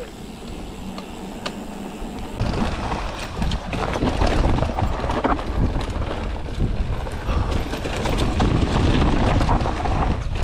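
Mondraker Foxy enduro mountain bike riding down a dirt trail: tyres rolling over the ground, with many quick rattles and knocks from the bike. About two and a half seconds in it gets suddenly louder and busier, as the trail gets rougher.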